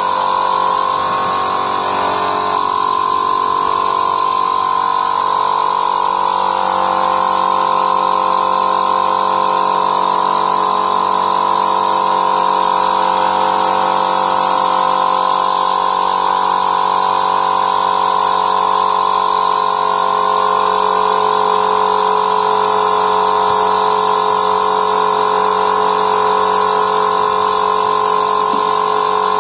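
A small electric motor running steadily, with a constant whine over a hiss.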